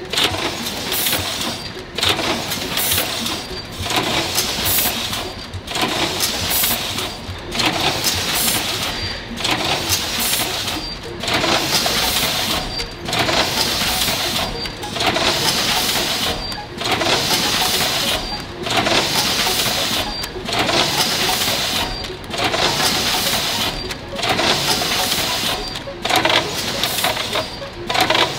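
Automatic pouch-packing machinery for seasoned laver running in cycles: a burst of mechanical noise with a brief high tone repeats about every two seconds.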